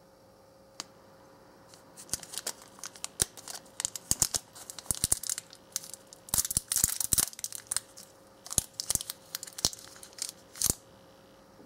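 Small clear plastic candy wrapper being torn open and crinkled by hand: a long run of sharp, irregular crackles and rips, thickest a little past the middle, stopping shortly before the end.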